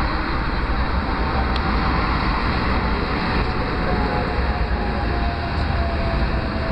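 Metro train running: a steady rumble and rush of wheels and air, with a faint whine that slowly falls in pitch.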